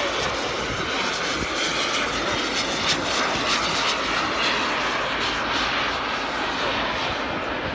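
Engine noise from a large radio-controlled model aircraft flying overhead, a steady rushing drone with no breaks.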